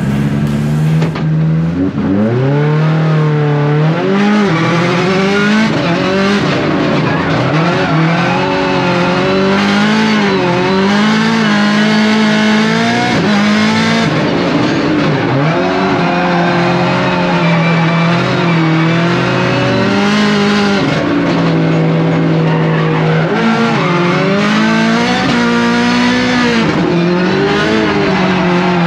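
Subaru rallycross car's turbocharged flat-four engine heard from inside the cockpit, idling and then pulling away about two seconds in. It then revs hard, its pitch rising and falling every second or two as the car is driven around the track.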